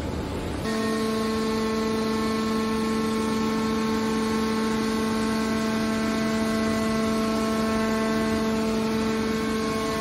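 Hydraulic power unit of a scrap metal baler running under load while the press lid closes: a steady hum with a whine layered above it, starting abruptly about half a second in.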